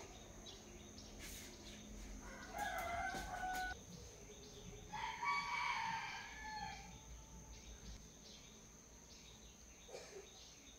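Two drawn-out bird calls, each lasting about one and a half to two seconds, starting about two and five seconds in; the second is higher and falls away at its end.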